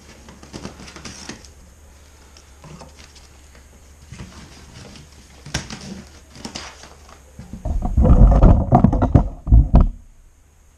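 Light rustling and knocking as a plastic strapping band is pulled off a cardboard box, then, about seven and a half seconds in, roughly two seconds of loud, dull, rumbling thumps.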